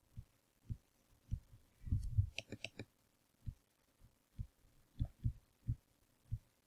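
Stylus tapping and knocking on a tablet screen during handwriting: a string of soft, low thumps at irregular intervals, with a brief cluster of sharper clicks about two and a half seconds in.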